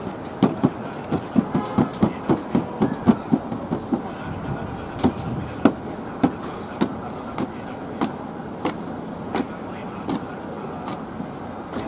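Thin flatbread dough being flung and slapped onto a steel table to stretch it: a quick run of slaps, about four a second, for the first few seconds, then slower single slaps about every two-thirds of a second. Steady street traffic noise underneath.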